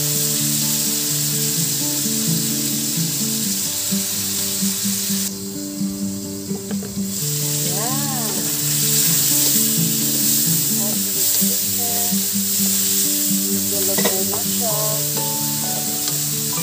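Chicken, onion and tomato sizzling in oil in a hot wok as they are stirred with a wooden spatula. The sizzle drops away briefly about a third of the way in. Background music plays throughout.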